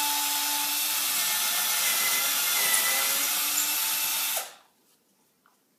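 Electric power drill running steadily as it bores a hole in drywall for a plastic wall anchor, then stopping about four and a half seconds in.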